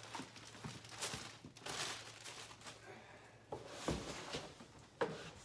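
Faint rustling and handling of packaging: plastic wrap and a cardboard box being rummaged through, with a few soft knocks from parts bumping against the box, the loudest about four and five seconds in.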